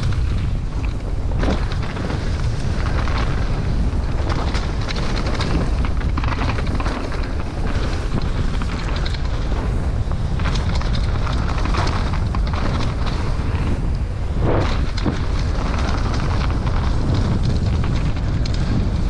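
Heavy wind rush on a helmet-mounted GoPro's microphone as a downhill mountain bike rolls fast down a dirt forest trail, with tyre noise and scattered knocks and rattles from the bike over bumps.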